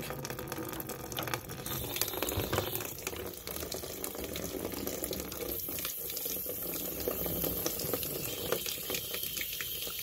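Water heater drain spigot running open, a steady thin stream of water splashing into a plastic tub that already holds water. The valve is passing water despite the calcium sediment in the tank.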